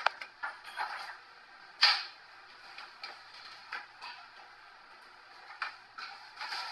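Scattered light knocks and clicks from boxed dining-table parts and cardboard being handled. The loudest is a sharp knock about two seconds in, with a few softer ones near the end.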